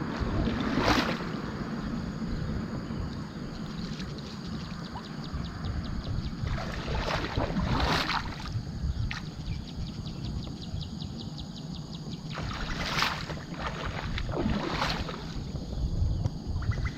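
Sounds of a small fishing boat out on the water: a steady low rush of wind and water, with a few short splashy swishes.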